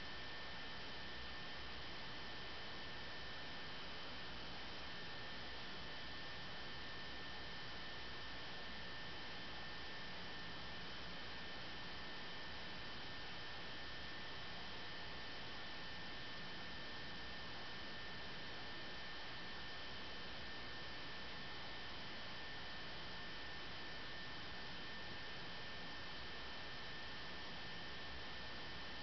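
Steady electronic hiss with two thin, high, unchanging whining tones and nothing else: the noise floor of the recording, with no programme sound.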